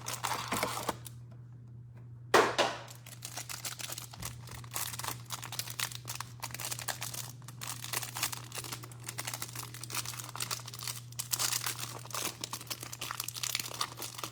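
Plastic wrap and cardboard of a trading-card hanger box crinkling and tearing as it is opened, starting with a sharp rustle about two seconds in and going on as many quick irregular crackles.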